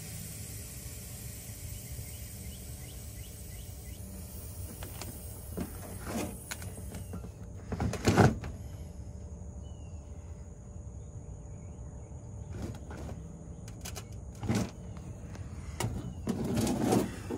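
Compressed nitrogen hissing through a digital refrigeration manifold and its hoses as a mini split's R-410A system is pressurized for a leak test. The hiss cuts off about seven seconds in. Then come a few knocks and clicks as the manifold's valve knobs and hoses are handled, the loudest about eight seconds in.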